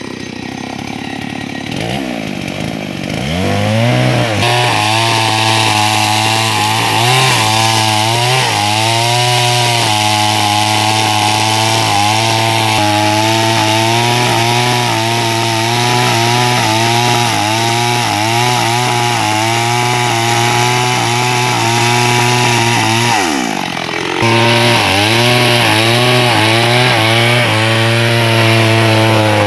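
Chainsaw cutting into a tree trunk, with a loud, wavering, pitched drone, the tree 'snoring' (ngorok) as it is cut. The drone sets in a few seconds in, breaks off briefly near the end, and resumes.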